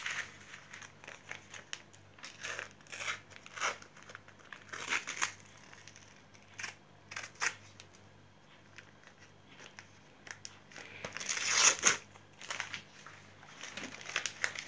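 Paper sticker packets being torn open by hand, the wrappers crinkling in short scattered bursts, loudest a few seconds before the end.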